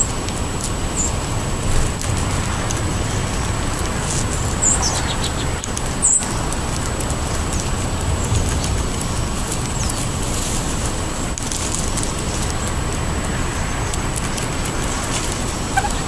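A steady outdoor background rumble with a few short, high bird chirps scattered through it, one of them falling in pitch about ten seconds in.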